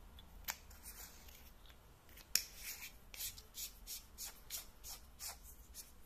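Metal flashlight tail cap being screwed onto the body: a click, a sharper click, then a run of short scraping strokes of the threads, about three a second.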